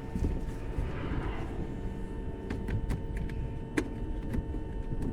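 Several sharp clicks and taps from the plastic engine undercover panel and its push clips being worked into place, over a steady low rumble and faint hum.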